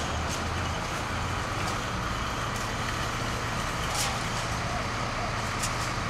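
Steady outdoor vehicle noise with a low engine hum, broken by a few short, sharp knocks.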